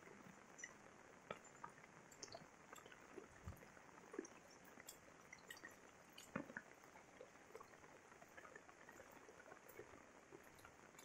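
Faint light rain: a steady soft hiss with scattered drips and small taps, and a few louder knocks.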